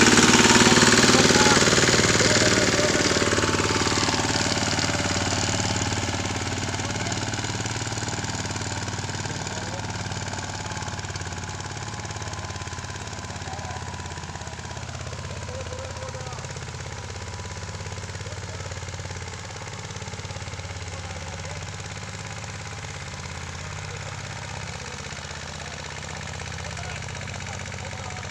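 Mahindra Yuvraj 215 tractor's single-cylinder diesel engine running steadily under load as it pulls a disc harrow, loud at first and fading over the first half as the tractor moves away.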